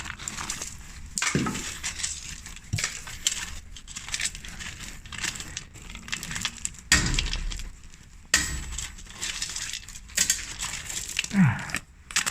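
Irregular clinking, scraping and crunching of loose broken concrete and debris being shifted by hand, with sharp knocks spread unevenly throughout.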